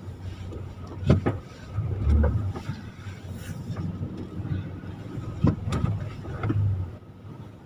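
Van cabin while reversing slowly: a steady low engine and road rumble, broken by a few sharp clicks or knocks, two about a second in and two more about five and a half seconds in, with a heavier low thump in between.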